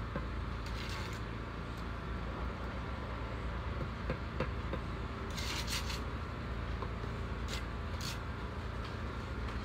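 Steel brick trowel scraping mortar and tapping a freshly laid brick into place: a few short scrapes and light taps. Under them runs a steady low rumble of vehicle engines.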